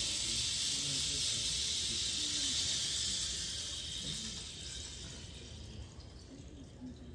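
Rain stick tipped end over end: a steady, water-like hiss of falling seeds that fades away over the last few seconds as they run out.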